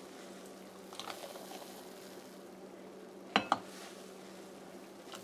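Eggnog ladled into a drinking glass: a soft splash of liquid, then two quick clinks of the metal ladle against glass about three and a half seconds in, each with a short glassy ring.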